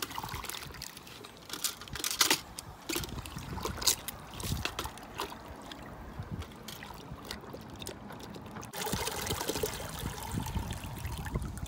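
Water splashing and knocking in a plastic bucket as a firework is pushed under with a reacher-grabber to soak it. About nine seconds in, a steady trickle begins as the soaked firework is lifted out and water pours from it back into the bucket.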